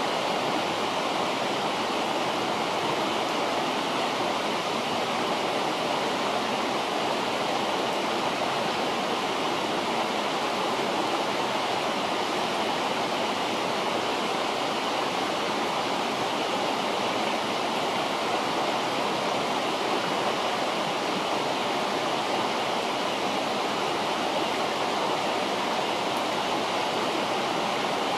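A river flowing steadily: an even, unbroken rush of water.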